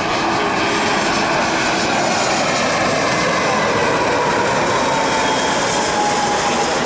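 Airliner on landing approach passing close overhead, its engines making a loud, steady rush of noise with a whine that slowly falls in pitch as it goes by.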